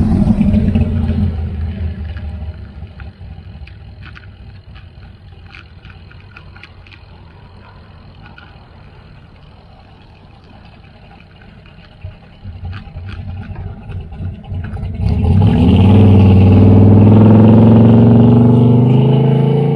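A classic green muscle car's engine: loud as it passes close by at the start and fading, then from about 15 seconds a very loud engine note rising steadily in pitch as the car accelerates away from alongside the bicycle. Wind and road noise from the moving bike lie underneath, with a few light rattling clicks.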